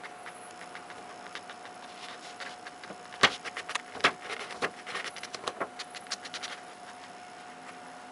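Sheet of loose-leaf paper rustling and crackling as a cat moves against it: a run of sharp crackles starting about three seconds in, the two loudest a second apart, thinning out over the next few seconds.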